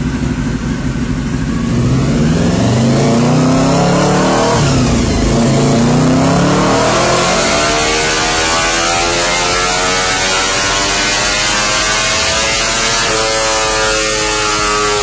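Honda four-cylinder four-stroke racing motorcycle engine run hard on a rolling-road dyno, revving high through the gears. Its pitch climbs in long pulls and drops at a gear change about five seconds in, then again near the end.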